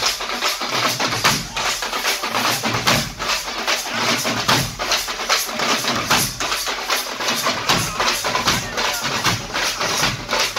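Tamate frame drums and large rope-tensioned barrel drums beating together in a fast, dense, unbroken rhythm.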